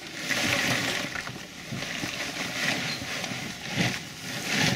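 Boiled crawfish, with corn and potatoes, pouring out of a tipped ice chest onto a plastic-covered table: a rattling, rustling cascade of shells that swells in waves, with a couple of heavier thumps near the end.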